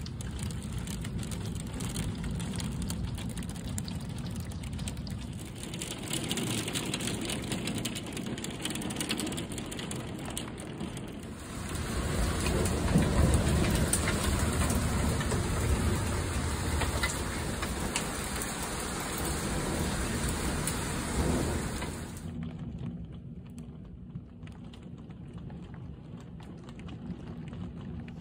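Heavy rain pouring down and splattering, a steady hiss that jumps in level a few times, loudest through the middle.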